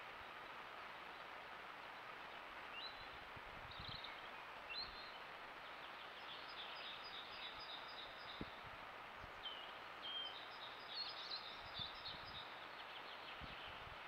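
Woodland ambience through a trail camera's microphone: a steady background hiss with small birds chirping and trilling, more busily in the second half, and a few soft low knocks.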